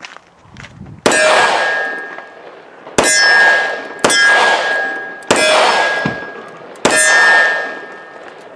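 Five shots from a Taurus 85 Ultra Lite five-shot .38 Special revolver firing +P loads, each answered by the ringing clang of a hit steel target. The shots come unevenly, about one to two seconds apart, starting about a second in.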